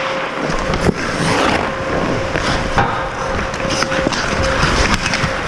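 Ice hockey skate blades scraping and carving on the ice, with a few sharp knocks of sticks or puck and a faint steady hum underneath.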